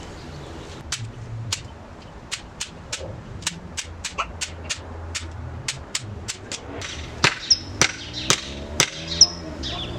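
A series of sharp clicks and taps from hand work, irregular at roughly two a second, louder in the last three seconds.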